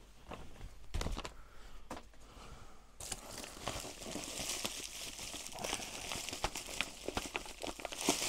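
Plastic bubble wrap crinkling and rustling as it is pulled off by hand, starting about three seconds in after a couple of light knocks.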